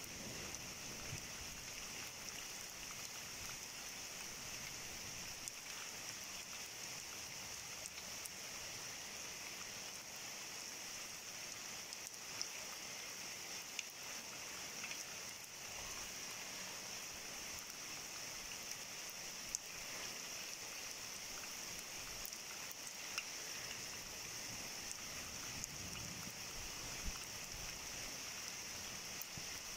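Heavy rain falling steadily, with a few sharp ticks of drops striking close by now and then.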